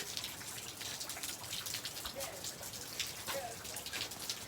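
Heavy rain mixed with snow falling, many separate drops and drips hitting surfaces over a steady wash of rain.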